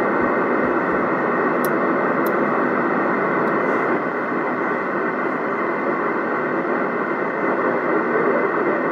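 Steady hiss of static from a Yaesu FT-847 transceiver's speaker, receiver open on the SO-50 satellite FM downlink while the signal is weak.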